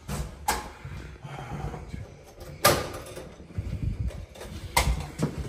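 Handling noises in a small room: a few sharp knocks and clatters, the loudest about two and a half seconds in, with low rustling between them.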